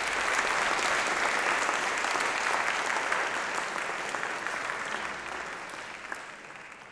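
Audience applauding, full for a few seconds and then fading away toward the end.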